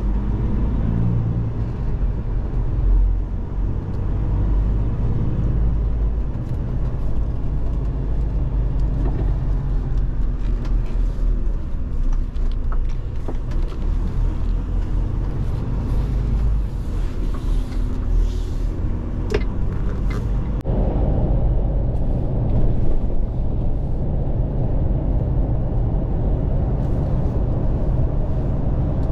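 Engine and road noise inside the cab of a moving Iveco lorry: a steady low rumble that grows fuller and slightly louder about two-thirds of the way through as the truck pulls away.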